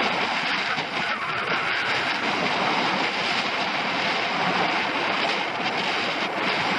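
Skis sliding and scraping over packed snow during a downhill run, a steady rushing hiss, with wind on the microphone.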